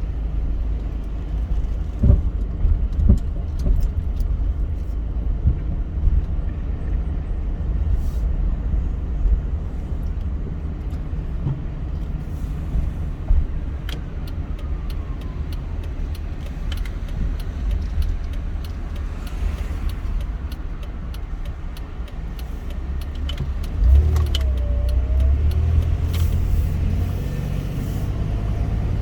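Car driving, with a steady low road and engine rumble and scattered small clicks and knocks. The rumble grows a little louder about 24 seconds in.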